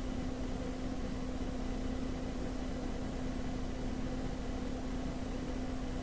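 Steady machine hum with one constant low tone over a faint hiss, unchanging throughout.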